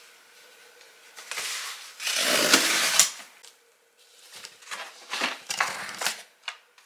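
Cardboard delivery box being opened: a loud rasping rip lasting about two seconds, then plastic-packaged food rustling and clicking as it is lifted out of the box.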